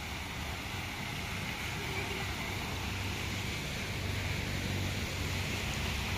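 Steady hiss of water splashing in a running tiered fountain, with a fluctuating low rumble of wind on the microphone.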